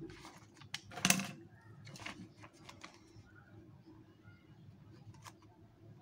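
Handling of a paper notebook and pen: a short scrape of the notebook being shifted about a second in, then faint scratches and clicks of a ballpoint pen starting to write on the page.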